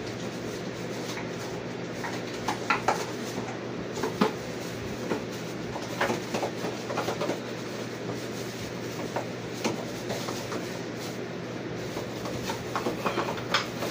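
Steady kitchen background hum with scattered light clinks and knocks of utensils and cookware, a few of them close together near the end.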